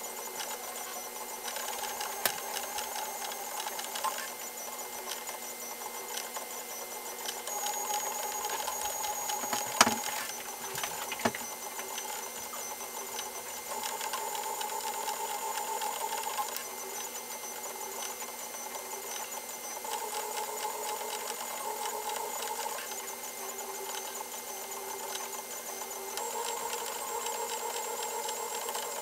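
M3D Micro desktop 3D printer printing: its stepper motors whine in tones that change pitch every second or two as the print head moves, over a steady fan hum. A few sharp clicks, the loudest about ten seconds in.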